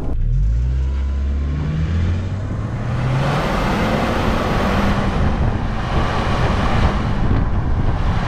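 Subaru FA24 2.4-litre turbocharged flat-four under hard acceleration, heard from outside at the rear bumper: its low engine note climbs in pitch over the first few seconds. A steady rush of road and wind noise then takes over.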